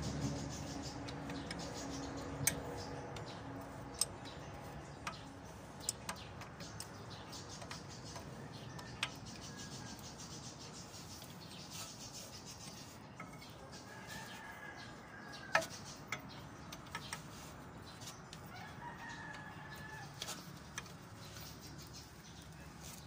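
Scattered sharp metallic clicks as a combination wrench works a bolt on a truck's front steering knuckle, with a rooster crowing twice in the background.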